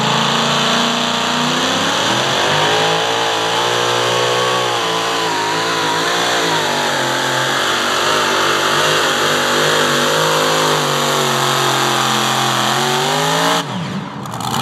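Supercharged engine of a pro modified pulling tractor running at the line, then revving up about two seconds in and running at high revs under load through the pull, its pitch wavering up and down. The engine sound stops abruptly near the end.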